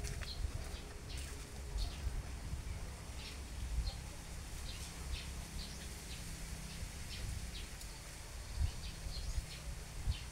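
Small birds chirping: short, high calls scattered throughout, over a steady low rumble.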